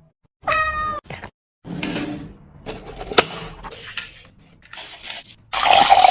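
A cat meows once, a short call about half a second in, followed by rustling and a few sharp clicks. Near the end comes a louder rushing noise that stops abruptly.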